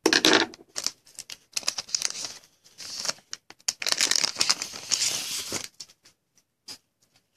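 Foil wrapper of a trading-card pack crinkling and tearing as it is ripped open and the cards pulled out. The crinkling stops about five and a half seconds in, leaving a few light clicks of the cards being handled.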